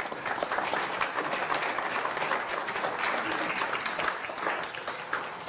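Audience applauding: many hands clapping at once, starting straight away and thinning out near the end.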